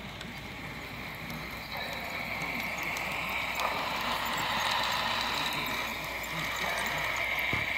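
HO-scale model of a Southern Pacific cab-forward steam locomotive and its tender running along the track, a steady hiss with faint ticks that grows louder about two seconds in as the engine passes close by.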